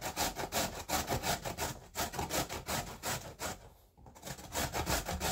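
A carrot being grated on a round metal grater: quick, even rasping strokes, several a second, with a brief pause a little over halfway through before the strokes start again.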